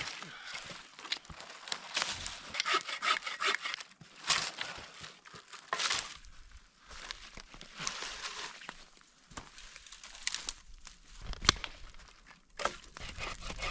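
Irregular rustling and crinkling with scattered light knocks and clicks: food and camp gear being handled and unpacked, with no steady rhythm.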